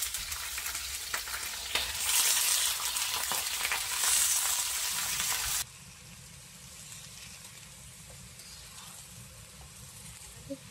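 Chicken pieces sizzling loudly as they go into a hot oiled carbon-steel wok and are stir-fried with a metal spatula, with a few knocks of the spatula on the pan. About five and a half seconds in, the sizzle drops suddenly to a much quieter, steady frying.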